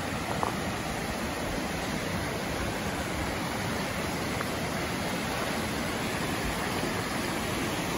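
Small rocky river rushing and splashing over stones in shallow rapids: a steady, even rush of water.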